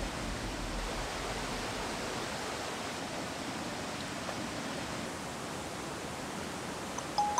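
Steady rushing of a fast-flowing river. About seven seconds in, a bright marimba-style phone ringtone starts over it.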